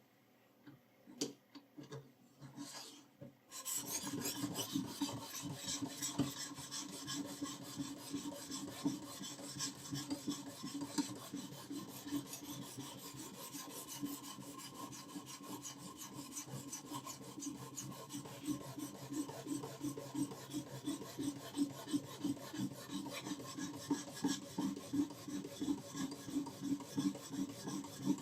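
A knife blade is rubbed back and forth across a sharpening stone in repeated rasping strokes. A few clicks come first, then steady stroking starts about three and a half seconds in, settling into about two strokes a second.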